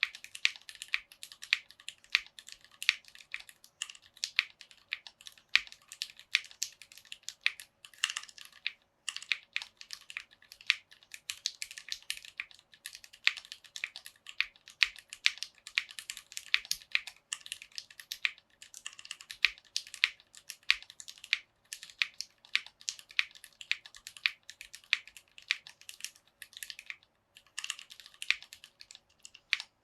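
Typing on a 60% mechanical keyboard in an acrylic case, with Cherry MX Black linear switches and PBT keycaps. It is a quick, continuous run of keystrokes, with brief pauses about eight seconds in and again near the end.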